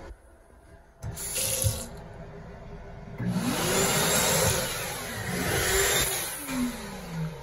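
Water running from a single-lever chrome faucet into a sink basin, a steady rush that grows louder about three seconds in. A low tone rises and falls twice beneath it.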